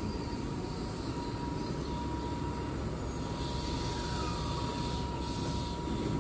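Keihan 7000 series electric train standing at the platform: a steady rumble from its running equipment, with a thin, steady whine over it.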